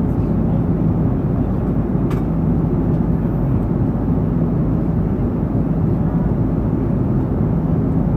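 Airbus A330-200 in flight, heard inside the cabin: a steady rush of airflow with a low drone from its GE CF6-80E1 engines, and a faint click about two seconds in.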